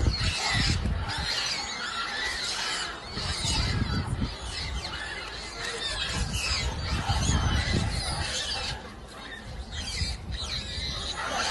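A troop of monkeys squealing and screeching over a constant din of many animals during a territorial fight.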